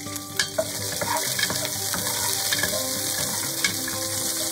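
Whole spices (cinnamon sticks, cloves, star anise and cardamom) sizzling steadily in hot oil in a pot, with a few sharp clicks. A wooden spatula stirs them near the end.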